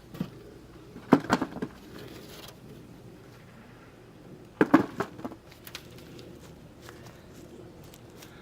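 Two short clusters of knocks and clatter from hands-on handling, about a second in and again just under five seconds in, with a few faint ticks and rustles between.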